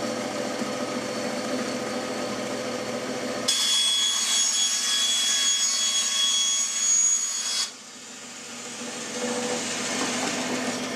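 Craftsman bench-top band saw running with a steady motor hum, then its blade cutting through a wooden board with a high-pitched whine for about four seconds. The cutting stops abruptly, and the motor hum builds back up.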